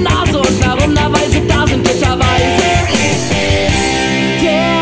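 Rock band playing a passage of a punk-rock song, with drums and electric guitar. About halfway through the drum hits thin out and long held chords ring on.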